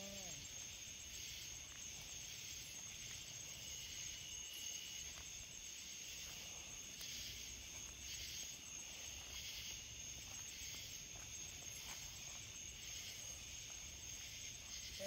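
A faint, steady chorus of night insects such as crickets, trilling continuously at a high pitch.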